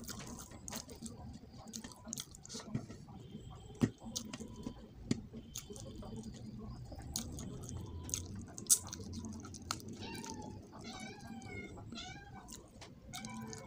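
Chewing and lip-smacking clicks of someone eating rice and fish by hand from a steel plate. Near the end a cat meows several times in quick succession.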